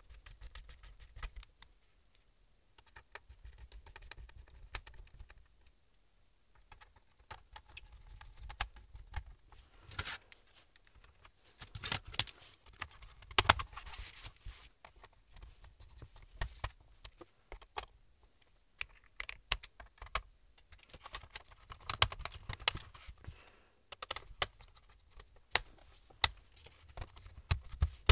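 Plastic bottom covers of an HP 6xx-series laptop being fitted and pressed into place: irregular clicks, taps and snaps of plastic handling with dull knocks on the table, the loudest a pair of sharp knocks about halfway through.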